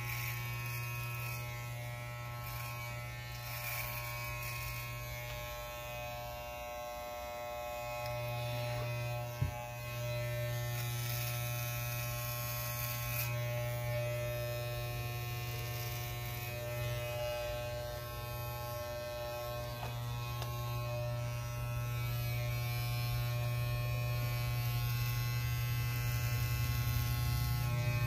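Corded electric hair clippers running with a steady buzz as they are passed over the scalp to shave the head close. There is one short sharp click about a third of the way in.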